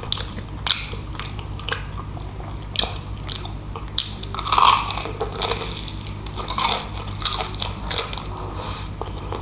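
Close-up eating: crunchy fried chicken bitten and chewed open-mouthed, a string of short crackles and wet mouth clicks, with one louder moment about halfway through.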